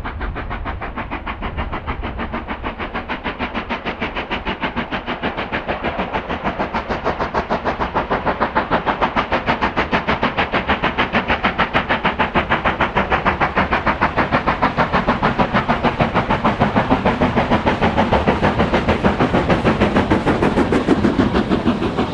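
Steam locomotive working a train, its exhaust beating in rapid, even chuffs that grow steadily louder as it approaches.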